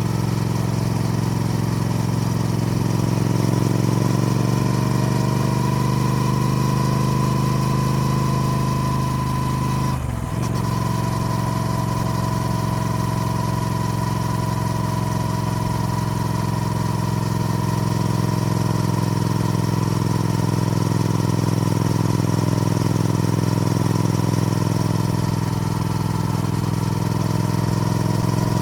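Triumph Speed Twin's parallel-twin engine running steadily. Its pitch rises a few seconds in, then dips briefly about ten seconds in before settling back to a steady note.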